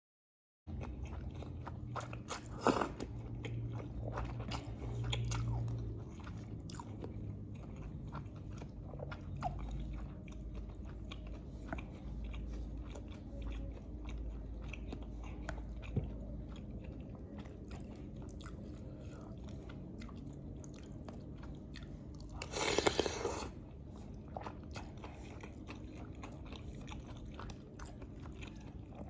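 Close-miked eating: steady chewing with many small wet mouth clicks as a person eats lontong (rice cake) with green chillies, over a steady low hum. One louder burst of noise comes about three-quarters of the way through.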